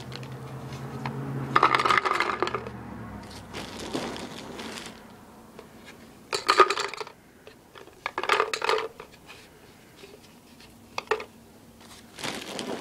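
Handfuls of paintballs dropped into a hard plastic gravity-feed paintball hopper, clattering in about six short bursts.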